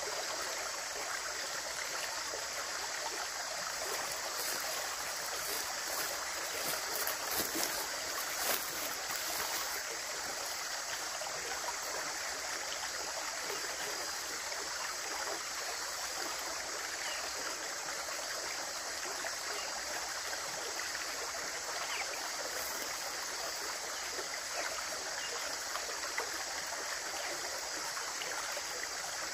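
Running water flowing steadily, an even rushing and trickling, with a few seconds of louder splashing a few seconds in.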